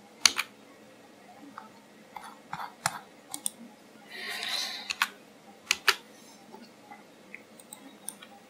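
Computer mouse and keyboard clicks: about a dozen sharp, irregularly spaced clicks, the loudest just after the start. About four seconds in there is a short breathy hiss.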